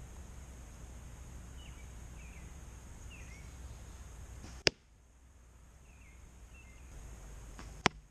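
Two arrows striking foam 3D archery targets, each a single sharp smack, about three seconds apart. Wind rumbles on the microphone and a few small bird chirps come in between the hits.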